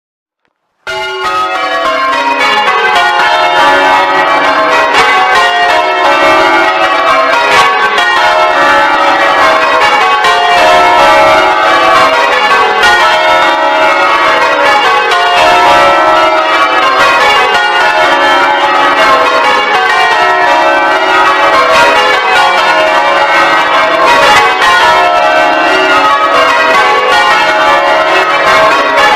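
Ring of ten church bells rung in English change ringing, the bells striking one after another in repeating runs from highest to lowest. The ringing cuts in suddenly about a second in.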